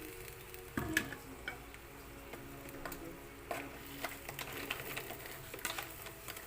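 Crabs cooking in a hot pan with Sprite just added: scattered small crackles and pops, with a sharp knock about a second in.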